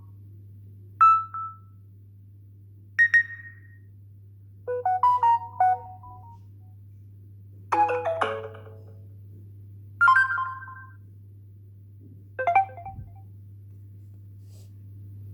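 Samsung Galaxy S10 notification sounds played one after another from the phone's speaker: six short chimes and jingles about two seconds apart, each a different melody. A steady low hum runs underneath.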